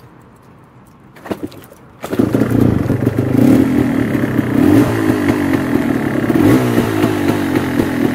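Yamaha DT200R two-stroke single-cylinder engine starting: a brief sound about a second in, then it fires about two seconds in and runs, with several blips of the throttle. It is starting and revving on a replacement CDI, the sign that the ignition fault lay in the CDI.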